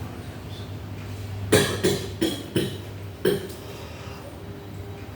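A man's coughing fit: five coughs in quick succession, starting about a second and a half in.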